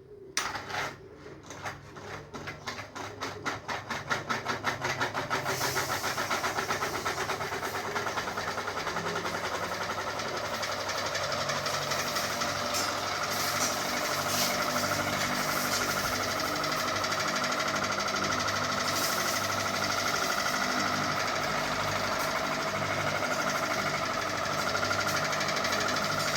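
Electric ceiling fan starting up. A rhythmic clacking quickens over about five seconds as the fan spins up, then settles into a steady, loud whirring rattle.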